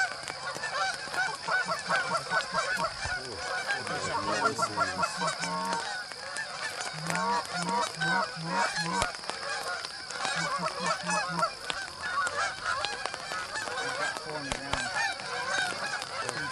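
Many Canada geese honking at once from a flock circling in to land, calls overlapping without a break. A couple of runs of short, low, quick notes come through about seven and ten seconds in.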